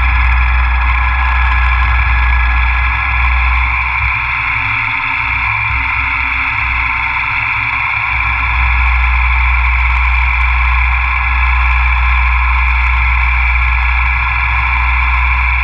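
CNC milling machine cutting a fixture plate: a steady whine from the spindle and cutter over a low hum, the hum easing for a few seconds midway.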